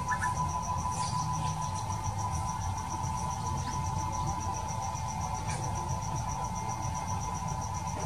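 Insects trilling steadily: a high, even pulsing chirp several times a second over a continuous lower drone, with a low rumble beneath.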